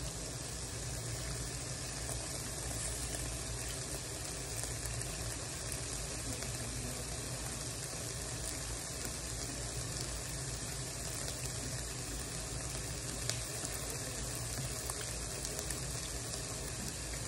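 Meat sizzling steadily on a hot grill, an even crackling hiss with a low steady hum beneath it.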